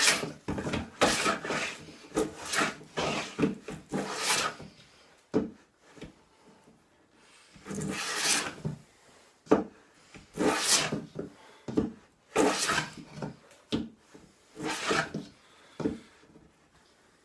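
Repeated hand strokes rasping along a wooden board: a quick run of about six strokes, a short pause, then more strokes spaced further apart.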